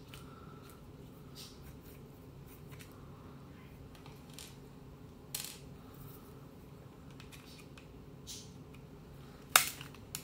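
Small metallic clicks and light scrapes from working the dial screws out of a Trimline telephone handset, with a sharper click about halfway through and a loud, short, ringing click near the end.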